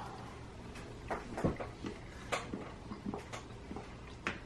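Quiet eating sounds of two people tasting raw cookie dough off spoons: scattered small clicks and mouth smacks at irregular moments.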